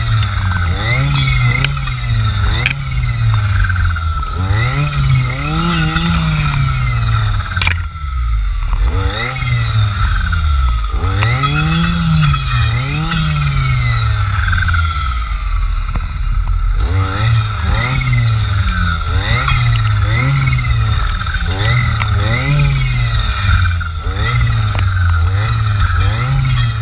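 Two-stroke engine of a Jonsered FC 2256 W clearing saw with a circular blade, revving up and dropping back again and again, roughly every one to two seconds, as it cuts brush. A steady high whine runs over it.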